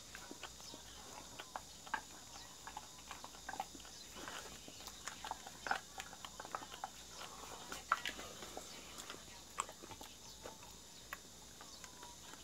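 Jindo dog licking ice cream from a cup held to its mouth: irregular wet clicks and smacks of its tongue.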